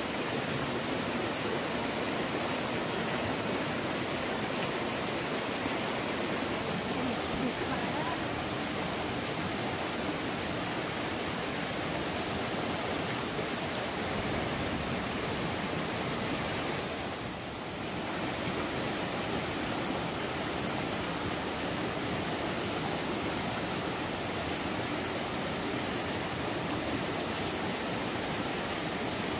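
Stream water rushing steadily, with a brief drop in level about seventeen seconds in.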